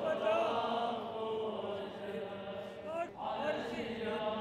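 A man's voice chanting a prayer of supplication in long, held, melodic lines, with a brief break about three seconds in.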